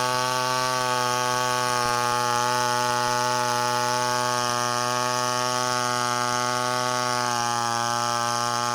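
Two-stroke chainsaw engine running steadily at high speed, its pitch dropping slightly about seven seconds in.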